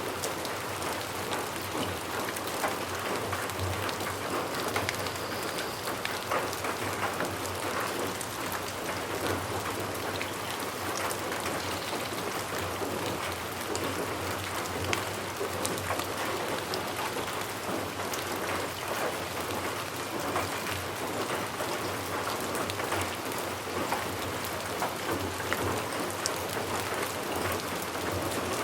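Steady rain falling, a continuous even hiss dotted with the ticks of individual drops hitting a surface.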